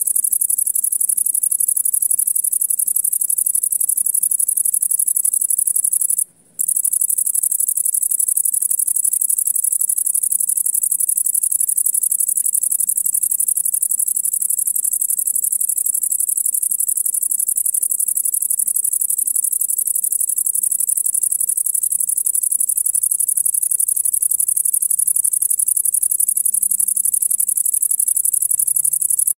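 Male great green bush-cricket (Tettigonia viridissima) singing: a steady, very high-pitched continuous buzz made by rubbing its wings together, the call it uses to attract a female. The song cuts out for a moment about six seconds in.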